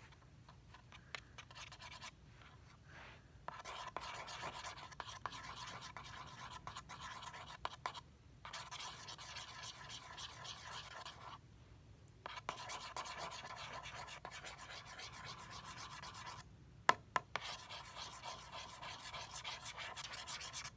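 A metal bobby pin stirring and scraping through a thick soap and shampoo mixture on cardboard, making scratchy rubbing in stretches of a few seconds with short pauses. Two sharp clicks come about three-quarters of the way through.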